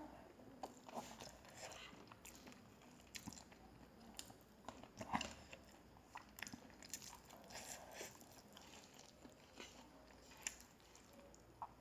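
A person chewing and eating a meal of rice and curry close to the microphone: soft, irregular wet mouth clicks, the loudest about five seconds in.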